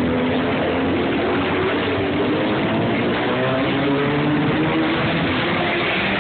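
Motorcycle engines of a pack of sport bikes riding past slowly, several at once, their pitch rising and falling as the riders rev.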